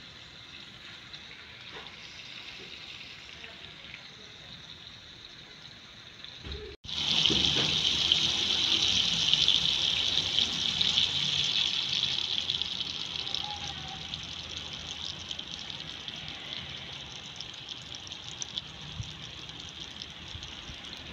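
Beaten egg poured into a hot pan of cooked tomatoes, sizzling loudly as it hits the pan. The sizzle starts suddenly about a third of the way in and slowly dies down. Before that there is only a faint steady hiss.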